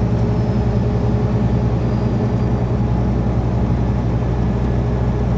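Lorry engine running steadily at cruising speed, with tyre and road noise, heard from inside the cab: an even, low drone.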